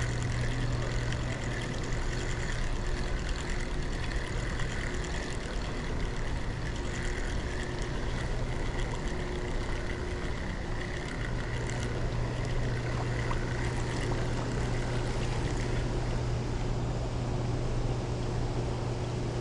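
Steady rushing of water released through the dam's open floodgates, with a low steady hum underneath that drops out for a few seconds about halfway through.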